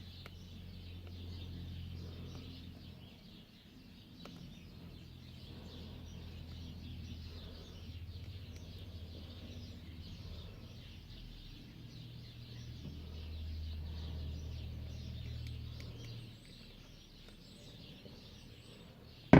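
Birds chirping in the background over a steady low hum, with a sharp knock right at the end.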